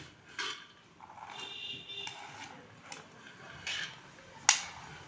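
A spoon scraping boiled chickpeas off a plate into a bowl: scattered soft scrapes and clicks as the chickpeas slide and drop, with one sharp click about four and a half seconds in.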